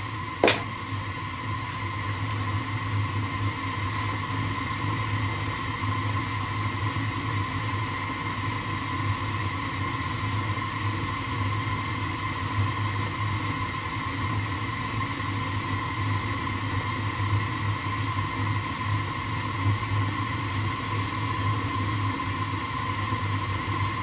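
Early gas furnace firing with its main burner lit, running steadily while it heats toward its limit setting: an even rush of noise over a low hum and a thin high whine. A short click about half a second in.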